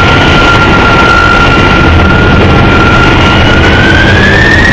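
Boeing 747-200F jet engines running loud: a steady high whine over a dense rumble. The whine rises in pitch near the end.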